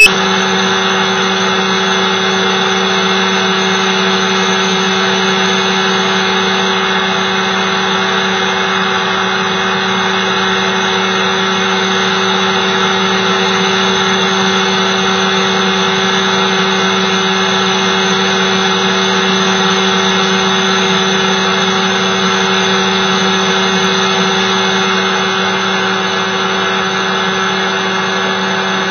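Small open-frame aircraft's engine and propeller running steadily in cruise flight: an even drone with a constant hiss over it.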